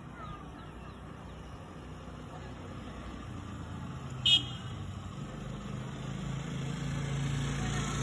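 Road traffic: a vehicle engine rumbling low and growing steadily louder as it approaches, with one brief loud toot about four seconds in.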